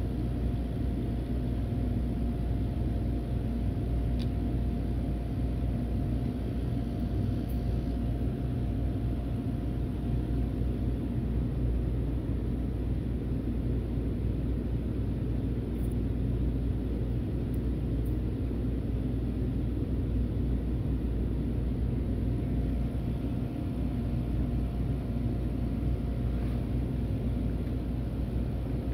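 Steady low rumble and hum of workshop machinery running, with a faint steady tone that drops out for about ten seconds midway.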